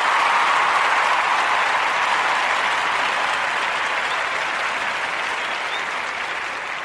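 Applause from a crowd, a dense steady clapping that slowly fades away.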